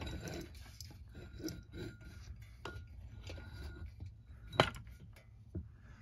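Light clinks and knocks of a ceiling fan motor being handled and turned over by hand, with one sharper knock about four and a half seconds in.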